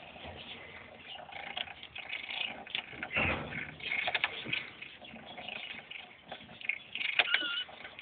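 Five-week-old kittens scuffling as they wrestle: scattered light taps and scrapes of paws and bodies, with a louder bump about three seconds in and a brief high squeak near the end.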